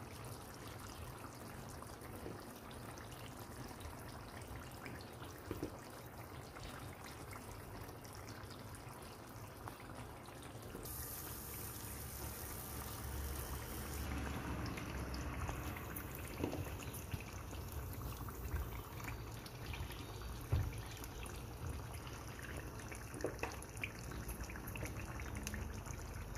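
Faint steady simmering of chicken and sauce in a clay tajine over a gas flame, with a few soft knocks as sliced potatoes are set into the dish.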